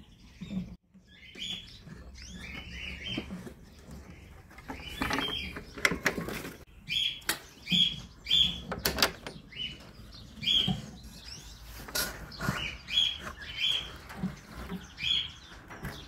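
Caged canaries giving short chirping calls, many of them at irregular intervals, with a few sharp clicks and knocks in between.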